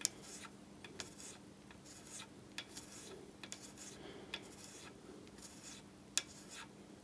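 Knife-type hand scraper taking light strokes across a white-metal (Babbitt) lathe bearing shell, scraping down its bottom for better contact. The short, faint scratches come at irregular intervals, with sharper strokes at the start and about six seconds in.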